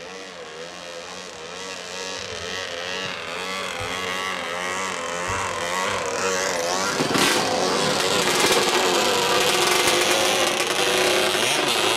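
Racing longtail boat engine running near idle with its pitch wavering as the throttle is worked. It grows louder and revs higher from about seven seconds in.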